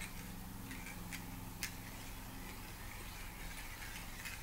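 A few faint, sharp metal clicks from a wire-track rolling-wheel toy as it is tilted and the disc moves along the wires, over a steady low hum.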